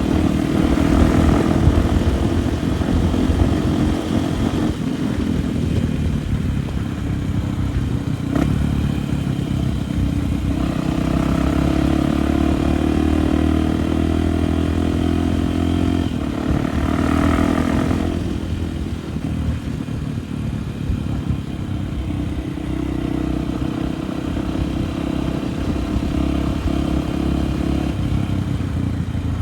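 Single-cylinder Honda Tornado 293 enduro motorcycle engine running while riding, its revs rising and falling through the throttle and gear changes.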